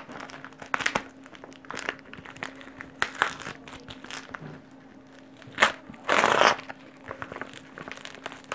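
Brown paper mailer being cut open with a small folding knife and pulled apart: scattered crinkles and crackles of paper, with a louder tearing rip about six seconds in.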